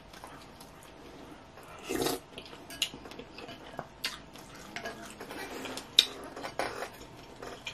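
Eating sounds up close: wet slurps and chewing of ramen noodles in broth, with a longer slurp about two seconds in. Scattered sharp clicks of utensils against a glass bowl, the loudest about six seconds in.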